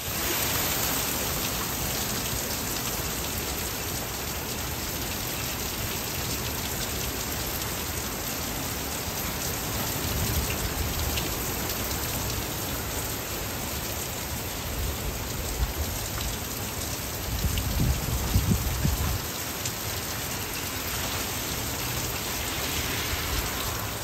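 Heavy rain pouring down on a parked car and lawn: a steady hiss, with low swells about ten seconds in and again near eighteen seconds.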